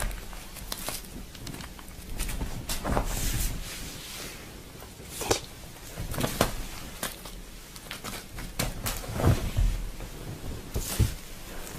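Scattered soft thumps and rustles of a cat pouncing on and batting at a toy on a carpet, with a handful of sharper knocks spread through.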